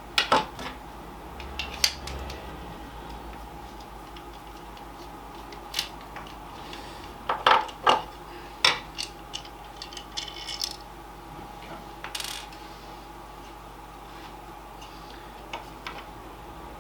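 Scattered clicks and light clatters of small hard parts being handled while a plastic gaming steering wheel is taken apart, with a cluster of sharper knocks about seven to nine seconds in.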